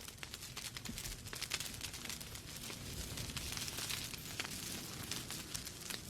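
Wood fire in a fireplace crackling: irregular sharp pops and snaps over a steady hiss of burning logs.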